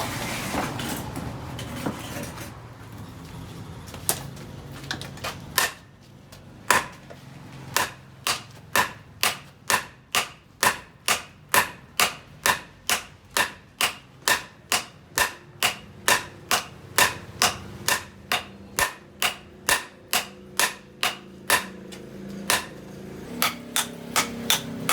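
Hand hammer striking steel on an anvil in forging: a steady run of sharp, ringing blows at about two a second, starting about six seconds in after a few scattered knocks.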